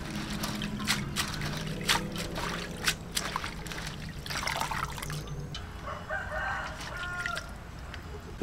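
Water sloshing and splashing in an aluminium basin as hands swish and lift mung bean sprouts to wash them, with a rooster crowing in the background.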